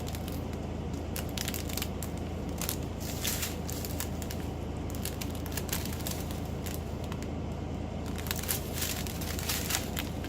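Small plastic bags of diamond painting drills being handled, crinkling and crackling in irregular short bursts over a steady low hum.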